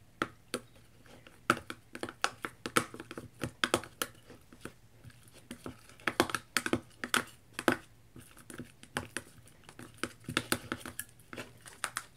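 Metal spoon stirring homemade slime of glue, liquid starch and paint in a small plastic cup. The spoon gives irregular clicks and taps against the cup, several a second, as the mixture turns sticky.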